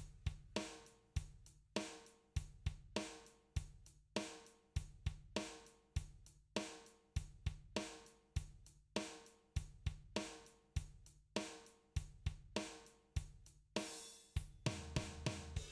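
Background music with a steady drum-kit beat: kick, snare, hi-hat and cymbal, over a bass line.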